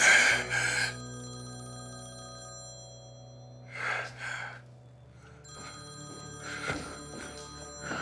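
Mobile phone ringing with a bell-style ringtone, short rings coming in pairs every few seconds, over low, sustained dramatic music.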